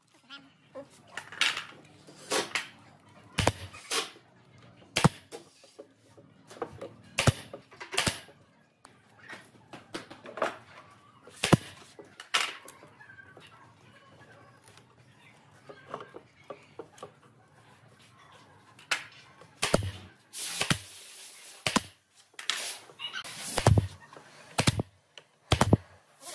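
Pneumatic brad nailer firing again and again into a wooden frame: sharp shots at uneven spacing, about one a second at first, sparser through the middle. About three-quarters of the way through comes a hiss lasting a second or two among a few louder shots.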